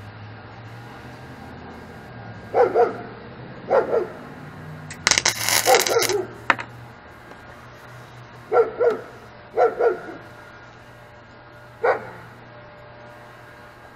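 Wire-feed welder striking a short tack weld on the mini bike frame, a crackling hiss lasting about a second, about five seconds in. Around it a dog barks repeatedly, often twice in quick succession, and the barks are the loudest sounds.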